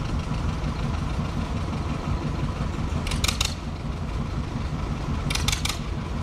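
Small narrow-gauge diesel locomotive engine idling with a steady low, uneven rumble. Two short bursts of rapid sharp clicking come about three and five seconds in.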